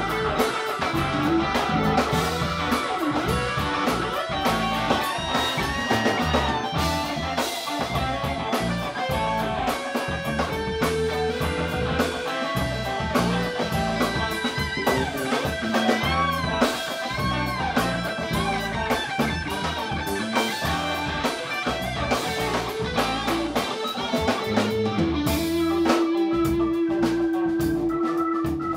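Live rock band playing: electric guitars, bass, drum kit and keyboard together, with a held organ note coming in about three seconds before the end.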